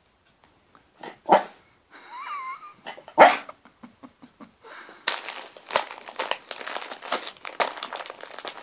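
A West Highland white terrier barks twice, with a short whine between the barks. From about five seconds in, wrapping paper crinkles and rustles steadily as she paws and noses at the wrapped present.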